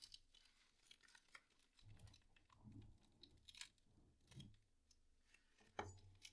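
Faint crinkling, scratching and tearing of a plastic mailer bag being cut open, with small scattered clicks and rustles.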